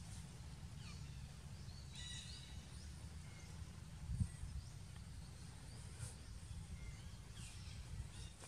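Outdoor forest ambience: a steady low rumble with scattered short, high bird chirps, and one soft thump about four seconds in.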